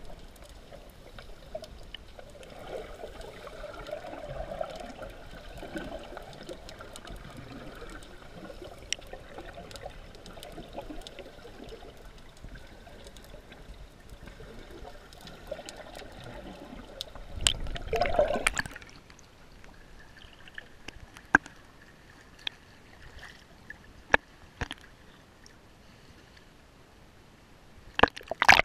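Seawater heard through an action camera's waterproof housing while submerged: a muffled gurgling, sloshing wash with scattered sharp clicks. A louder rush of water comes about eighteen seconds in, and a burst of splashing near the end as the camera is at the surface.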